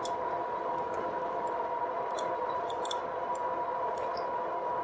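2018 RadMini electric bike cruising at about 20 mph: its geared rear hub motor gives a steady whine over tyre and wind noise, with scattered faint ticks.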